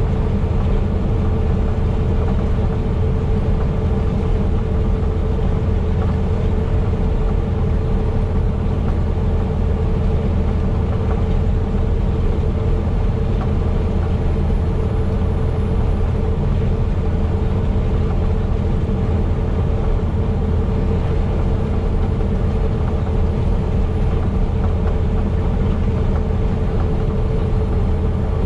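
Semi truck's engine running steadily while driving, a constant low drone with a steady hum, mixed with road noise.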